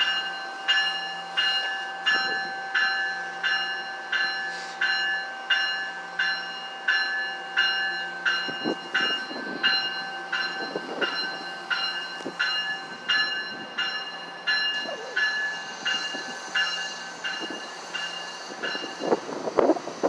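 Warning bell of a departing NJ Transit push-pull commuter train, ringing steadily at about one and a half strikes a second as the train rolls out. From about halfway there are occasional wheel thumps, and the bell fades out near the end.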